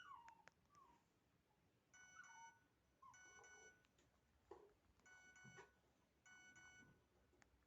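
Nokia 1616-2b ringtone playing faintly: a short phrase of stacked electronic beeps repeated four times, with a few short falling chirps in between.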